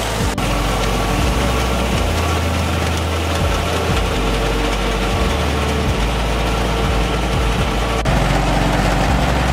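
Engine of farm seed-treating equipment running steadily at a constant speed. The sound changes abruptly about a third of a second in and again about eight seconds in.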